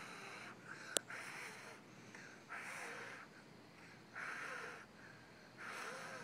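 A child blowing hard on a dandelion seed head: five short breathy puffs about a second and a half apart. A sharp click sounds about a second in.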